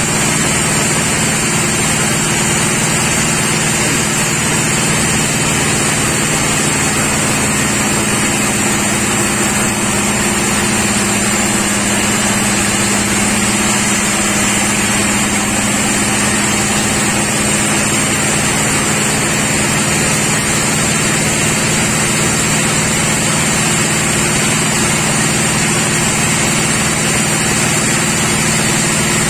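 Sawmill machinery running steadily: a constant engine-like drone with a steady high whine above it, unchanging throughout.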